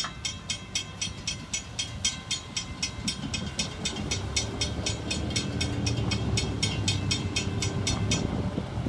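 Railroad grade-crossing warning bells ringing rapidly and steadily as the crossing gates lift, cutting off a little before the end once the gates are up. Underneath, road vehicles start up and drive over the tracks, their rumble building from about three seconds in.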